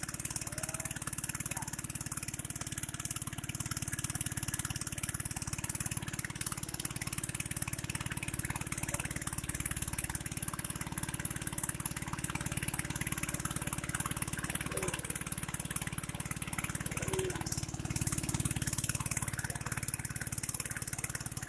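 Small engine running steadily with a fast, even pulse and no change in speed, under a constant high hiss of wind or water rush.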